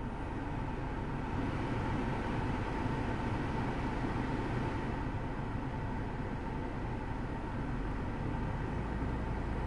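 Mitsubishi Pajero Sport's air-conditioning blower running inside the cabin: a steady rush of air that swells over the first couple of seconds as the fan is turned up, with a faint steady whine over a low hum.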